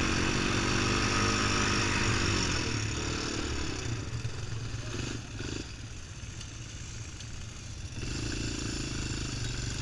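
ATV engine running under throttle across sand, then dropping off as the quad slows to a stop; about eight seconds in a steady engine note picks up again.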